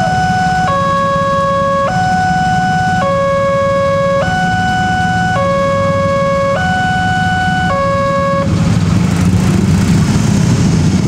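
Railroad level-crossing alarm sounding a two-tone electronic chime, alternating a low and a high note every second or so, over the running engines of waiting motorcycles. The alarm cuts off about eight and a half seconds in as the crossing clears. The motorcycle engines then grow louder as the barrier lifts.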